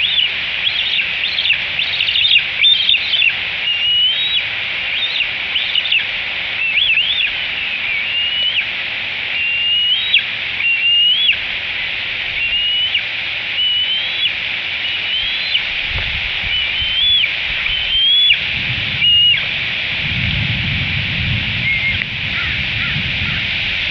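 Bald eaglet food-begging: a long series of high, thin whistled calls, about one a second, each a short rising or falling slur. The calls thin out in the last few seconds.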